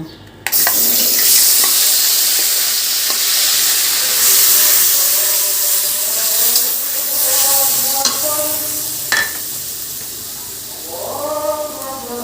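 A ground paste of green chilli, onion and garlic hitting hot oil in a karai and sizzling. The sizzle starts suddenly about half a second in and slowly dies down, with a click about nine seconds in.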